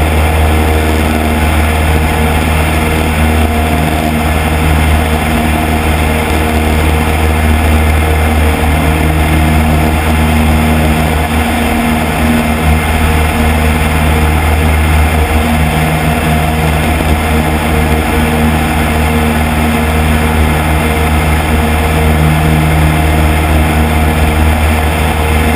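Cub light aircraft's piston engine and propeller running steadily in cruise flight, with a constant drone and no change in pitch. Wind rushes over the externally mounted microphone.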